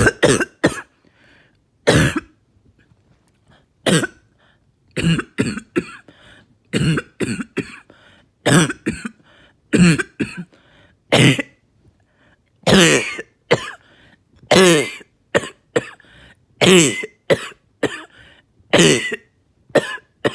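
A person coughing over and over in a fit, short harsh coughs often coming in quick pairs and threes with brief pauses between. They are productive, chesty coughs loosening and bringing up thick mucus.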